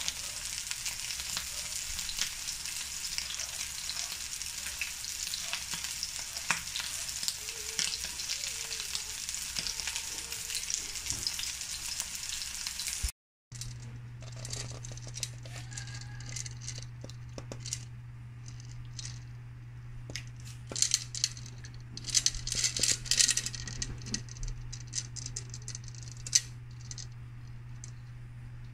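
Hamburger patties sizzling and crackling in hot oil in a frying pan, a dense steady hiss. About halfway through it cuts off abruptly, and a steady low hum follows, with scattered clicks and clatters that bunch up loudest about three quarters of the way in.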